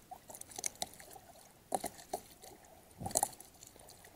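Small splashes and trickling water as a big blue catfish is held at the surface to revive it. Two louder splashes come about a second and a half in and again about three seconds in.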